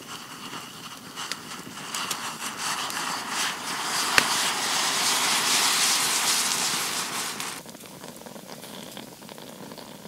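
Campfire crackling and popping, with a loud hiss that swells over a few seconds and then stops suddenly. There is a sharp pop about four seconds in.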